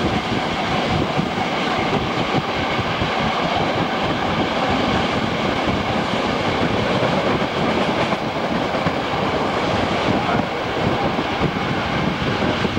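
Passenger train running at speed, heard from inside a carriage: a steady, loud rumble of wheels rolling over the rails.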